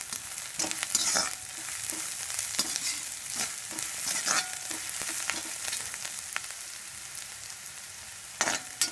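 Chopped onion and garlic sizzling in hot oil in an iron kadai, with a perforated steel spatula scraping against the pan at irregular moments as it is stirred. The scraping is louder near the end.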